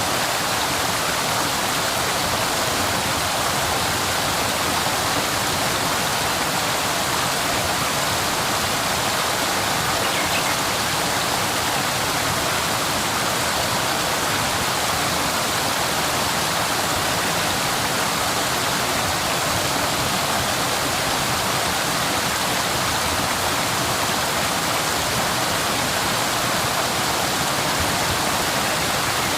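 Waterfall: a steady, unbroken rush of falling water, more hiss than rumble.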